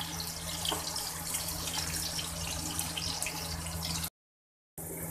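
Sliced onions sizzling and crackling steadily in hot oil in a pot. The sound cuts out abruptly to silence for a moment near the end, then returns.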